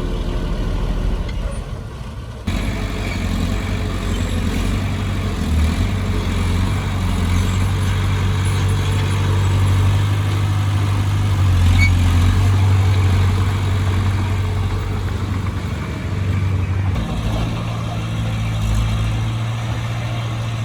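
Heavy diesel engine of earthmoving machinery running steadily. The engine note changes abruptly about two and a half seconds in and again near the end.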